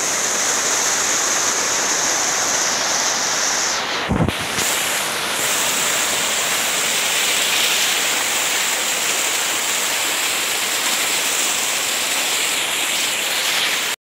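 Small forest waterfall rushing steadily over rocks close to the microphone, with a brief low thump about four seconds in.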